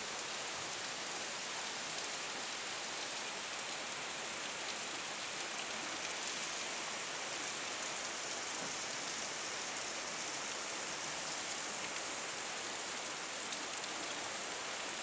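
Steady downpour of rain falling on trees, a roof and a flooded yard, an even hiss with no breaks.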